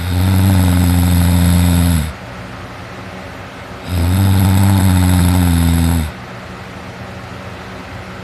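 A teenager snoring loudly while asleep on his back: two long snores of about two seconds each, one at the start and one about four seconds in, each low and steady in pitch, with a steady hiss between them.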